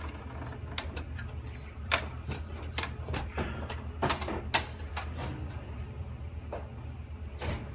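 Scattered sharp clicks and light taps of a screwdriver and metal computer parts being handled during disassembly, over a steady low hum.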